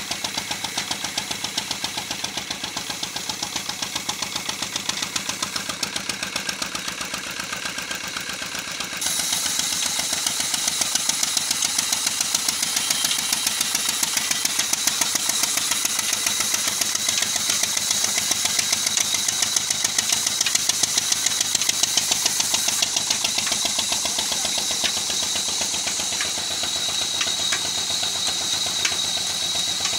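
Old Ruston Hornsby stationary diesel engine running steadily under belt drive, a regular knocking beat of firing strokes. About nine seconds in it gets louder and a high hiss joins the beat.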